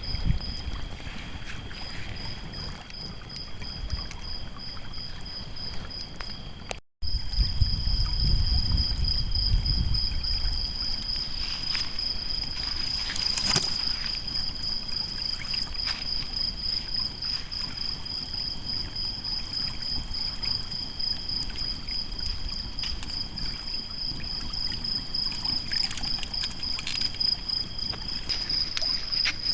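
Lakeside night ambience: insects trilling in a steady, high, pulsing tone, with a second, lower trill alongside for most of it. Under them is a soft wash of water, with faint scattered crackles from the campfire. The sound drops out completely for a moment about seven seconds in.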